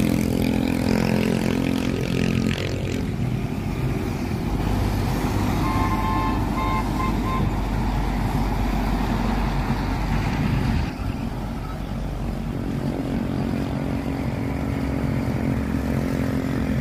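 Heavy tanker trucks' diesel engines running and tyres on the road as they drive past, with a vehicle horn giving a few short toots about six seconds in.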